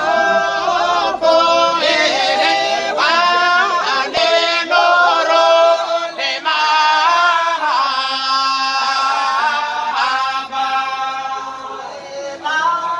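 A small group of voices singing together unaccompanied, a chant-like song with long held notes.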